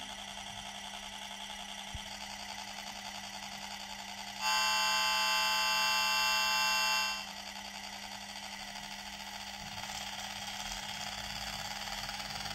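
Sound decoder of a digitised model Alco diesel locomotive playing through its speaker: a steady low engine hum, with one horn blast about two and a half seconds long near the middle. The engine sound grows a little louder near the end. The speaker sits behind a reworked, enlarged roof grille so that the sound carries better.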